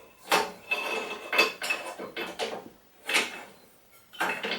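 Rummaging through small hard objects in a workshop: a run of irregular clinks, clatters and knocks of metal and wooden bits being moved about, which stops for a moment about three and a half seconds in and then starts again.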